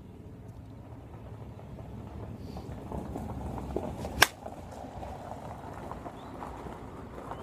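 Avarice G2 slowpitch softball bat hitting a softball off a batting tee: one sharp crack a little over four seconds in, over a steady low rumble.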